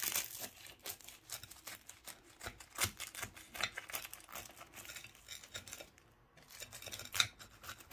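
Knife cutting through crisp, freshly baked rolled börek on a plate: a run of irregular crunches and light clicks from the crackling crust, with a short lull about six seconds in.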